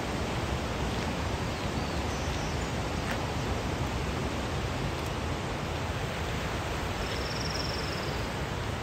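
Steady rushing outdoor noise, an even hiss with no clear rhythm, with a faint high trill about seven seconds in.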